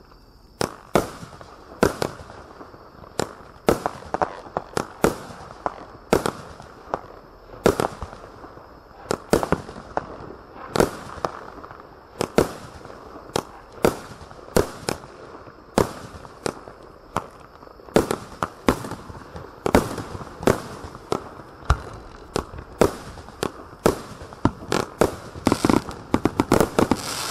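Cosmic Fireworks Swamp Beast 22-shot firework cake firing: an irregular series of sharp bangs, about one or two a second, quickening into a rapid cluster near the end.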